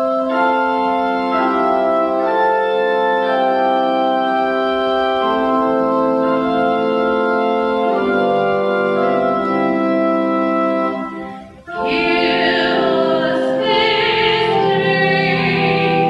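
Organ music in sustained chords that change pitch every second or so. It cuts out briefly just before the twelve-second mark, then resumes with a brighter, strongly wavering melody line above the chords.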